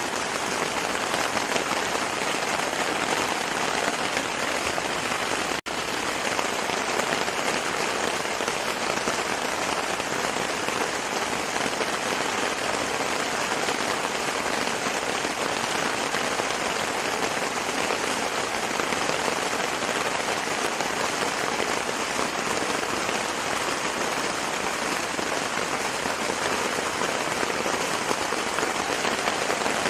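Heavy rain falling steadily on a tent, heard from inside. The sound cuts out for an instant about five and a half seconds in.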